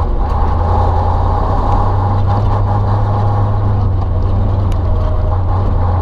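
Ural logging truck's diesel engine running steadily while the truck drives: an unbroken low drone.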